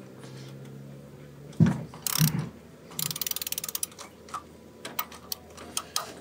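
Hand socket ratchet clicking as a fuel rail bolt is backed out: a quick run of clicks about three seconds in, then slower single clicks. Two dull knocks come before it, a little after a second in.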